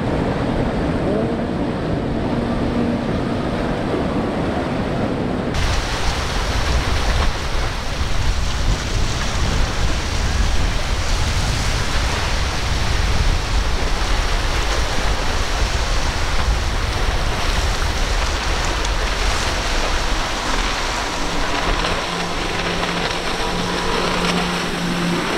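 Outboard-powered center-console boats running at speed, with a steady rushing hiss of water, spray and waves. For the first few seconds a single outboard's drone sits over the water sound. After an abrupt cut about five seconds in, a louder rush with wind rumble takes over, and a steady multi-outboard hum rises again near the end.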